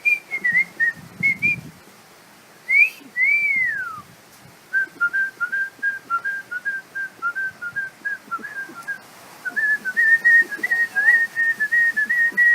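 Cockatoo whistling. It gives a few short chirped notes, then a long falling whistle about three seconds in, then a long run of quick short whistled notes, about four or five a second.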